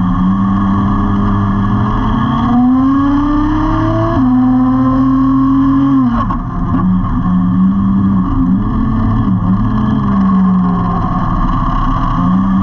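Small-block nitro engine of a 1/10-scale Exceed Nitro Rally Monster RC truck, heard from a camera on the truck as it runs at speed. The pitch climbs steadily, then drops suddenly about four seconds in while the truck keeps speeding up, the two-speed gearbox shifting up. After about six seconds the revs fall and then rise and fall repeatedly as the truck slows and turns.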